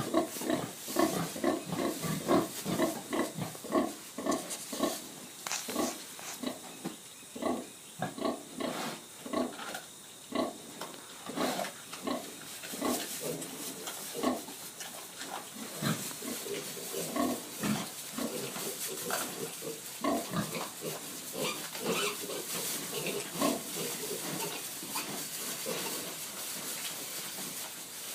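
A nursing sow and her suckling piglets grunting. The short grunts come in a steady rhythm of about two a second, louder in the first half and softer and looser later. Such rhythmic grunting is the sow's nursing call that goes with letting her milk down.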